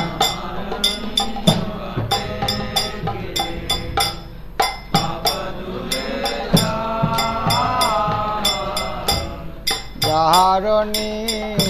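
Instrumental interlude of a Bengali devotional bhajan: an even rhythm of sharp metallic clicks and low drum strokes under a held melody line. The singing voice comes back in near the end.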